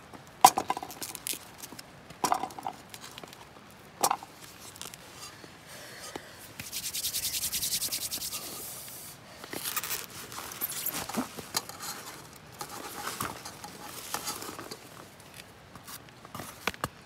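Hands handling vegetables and their plastic packaging. There are three sharp knocks in the first four seconds, then a steady rasping hiss of plastic film being rubbed or peeled for about two seconds. After that comes irregular crinkling and rustling as a wrapped foam tray of chives is opened and the chives are pushed into a pot.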